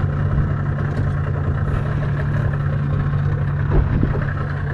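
A boat's twin engines idling with a steady low hum.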